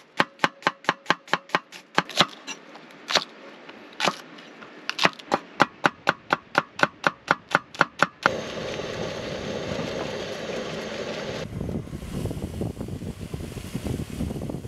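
Rapid, even chopping strokes, about four a second, with a few heavier strokes in the middle, like a knife on a cutting board. About eight seconds in they stop, and steady wind and surf noise takes over.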